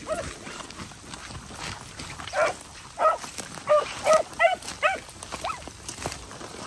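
Rabbit-hunting dog barking: a run of six or seven short barks about half a second apart, starting a little over two seconds in.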